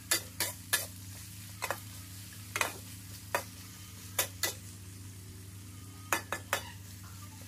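Metal ladle and spatula scraping and clinking against a steel wok in irregular strokes, about a dozen in all, as a vegetable and chili stir-fry is turned. Under the strokes runs a steady frying sizzle and a low steady hum.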